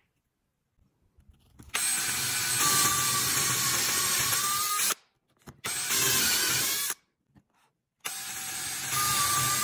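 Cordless drill boring a dowel hole through a wooden mortise-and-tenon joint, its motor running with a steady whine. It runs in three bursts: about three seconds, then about a second, then again from near the end.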